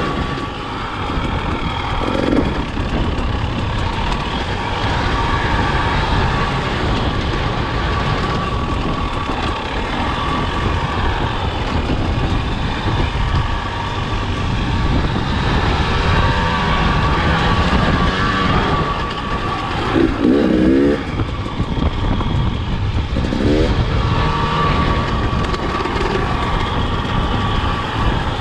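KTM enduro dirt bike's engine running under way at speed, steady throughout, with a few short pitch sweeps as the throttle is worked along the way.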